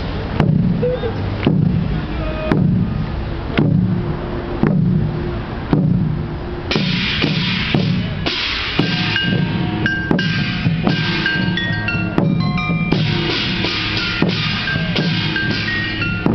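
Korean traditional military procession music (daechwita): a large barrel drum struck about once a second, with a reedy taepyeongso shawm melody coming in about seven seconds in.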